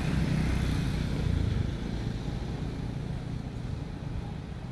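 A low engine rumble that slowly fades.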